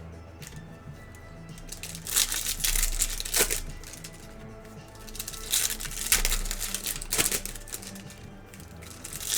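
Foil trading-card pack wrappers crinkling and tearing in two bursts as packs are ripped open, over steady background music.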